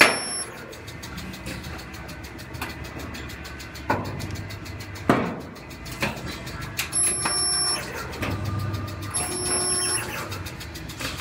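Resistance spot welder joining a steel pickup bedside to the inner wheelhouse flange: sharp clunks as the gun's copper electrodes clamp and release, and twice a short humming weld pulse lasting under a second.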